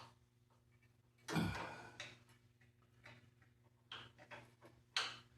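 Scattered light clicks and knocks of metal parts being handled while a hydrostatic garden tractor's directional control is fitted back together, with a louder knock about a second in and another near the end.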